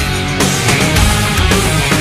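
Loud heavy metal music with a steady driving beat.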